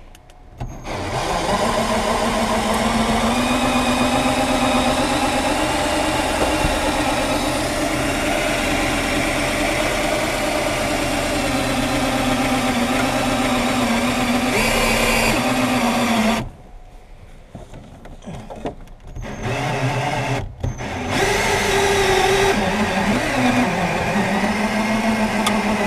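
Cordless drill driving a glass-removal wire winder, running steadily as it reels in the cutting wire through the back-glass urethane. About two-thirds of the way through it stops, gives a couple of short bursts, then runs steadily again.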